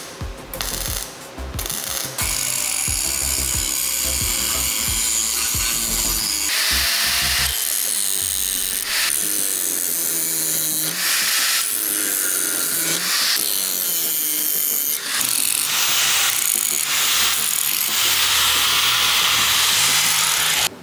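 A few knocks, then a power tool starts about two seconds in and runs in long stretches, its sound shifting as it works the wood.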